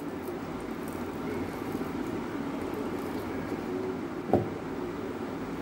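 Steady low background hum, with one short knock a little over four seconds in.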